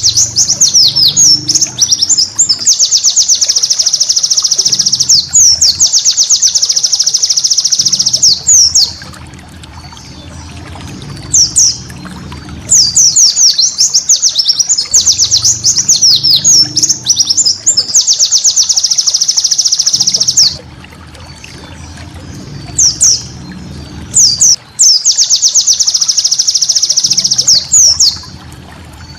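White-eye (pleci) singing: long, rapid, high-pitched trills of two to three seconds each, alternating with shorter runs of quick chirps and brief pauses.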